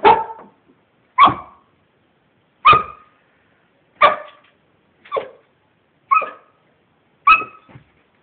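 A dog barking at its own reflection in a mirror: seven sharp barks, about one a second.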